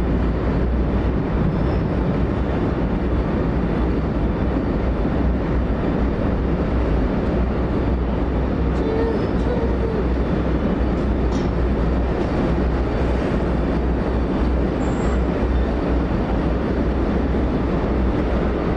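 Steady low rumble of a passenger train rolling along the track, heard from on board one of its cars.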